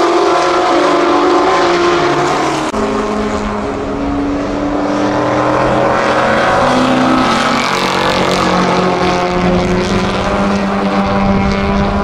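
Racing car engines at full throttle on a circuit. First, a Ford GT40's V8 moves away with its pitch dropping in steps. Then, from about three seconds in, several 1960s sports racers, among them a Shelby Mustang GT350 and a Jaguar E-Type, pass together with overlapping engine notes.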